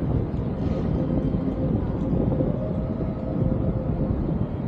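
Steady city traffic noise heard from a bicycle moving along the street, with wind rumbling on the microphone and a faint steady hum underneath.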